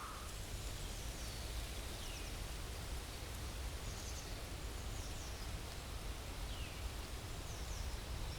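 Forest ambience bed: a steady hiss over a low rumble, with faint, scattered short high chirps from small birds.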